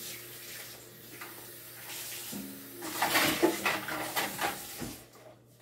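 Kitchen tap running into a stainless steel sink during washing up, with dishes clattering in the sink for a couple of seconds in the second half. The water stops near the end.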